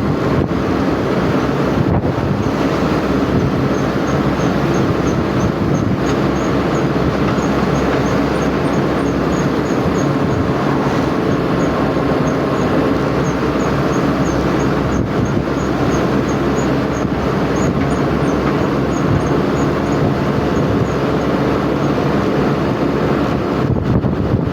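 Steady running noise of a moving vehicle, with faint high chirps repeating through the middle.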